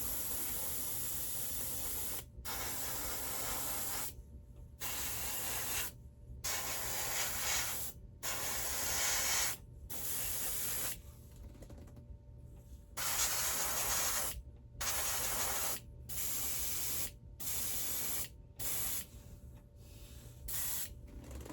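Airbrush spraying a coat of paint in repeated bursts of one to two seconds, with short pauses between them as the trigger is let off.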